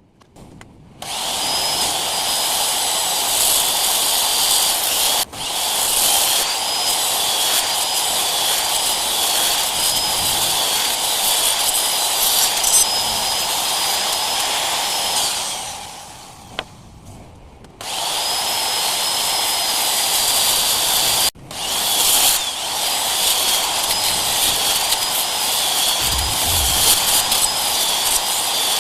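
A handheld electric power tool running and working wood, with a steady high whine whose pitch wavers slightly as it takes the load. It stops for about two seconds in the middle, then starts again and runs on.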